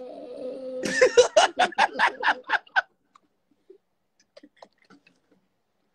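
A man laughing hard: a quick run of about ten loud 'ha' bursts, roughly five a second, that stops about three seconds in. Only a few faint small sounds follow.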